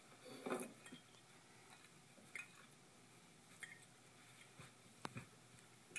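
Near silence from a film soundtrack played through a computer speaker: faint room tone with a soft rustle about half a second in and a few faint clicks and clinks.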